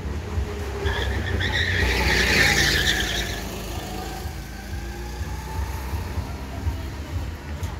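Go-kart engines running as karts drive around the track, with a squealing tyre skid from about one to three and a half seconds in, loudest a little past two seconds.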